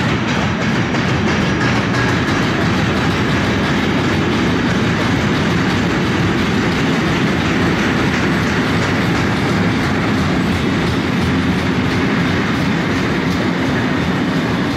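Container freight train rolling past: a steady rumble of steel wheels on rail from a long line of loaded container wagons, with continuous wheel clatter.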